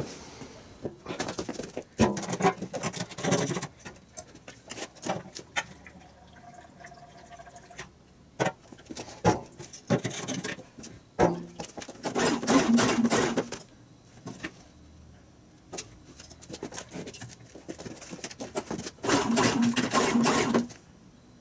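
Refuelling and pull-starting a Champion Digital Hybrid portable generator: clicks and clatter as the fuel cap is worked by hand, then the recoil starter cord yanked, once about halfway through and again near the end, without the engine catching. The owner puts the failure down to a gummed-up carburettor.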